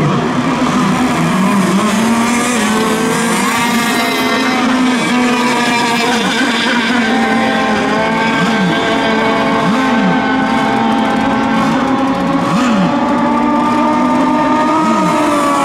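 Several radio-controlled racing boats running laps together, their motors sounding at once with pitch swooping down and up again several times as boats pass.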